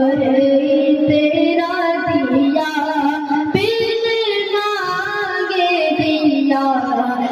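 A young naat reciter singing a devotional naat into a microphone over the PA, holding long notes with ornamented turns and stepping up to a higher note about three and a half seconds in.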